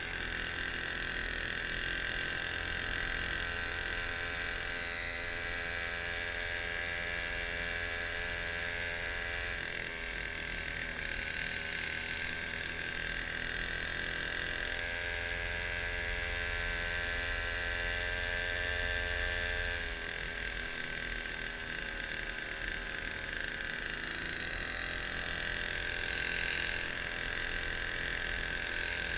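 Small outboard motor on a kayak running steadily with a high, even whine; its tone shifts about ten seconds in and drops near twenty seconds in.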